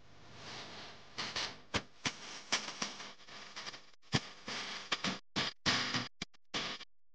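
Rice crusts deep-frying in hot oil in a pan: a sizzle that breaks into sharp crackling and popping, coming in bursts with short silent gaps toward the end.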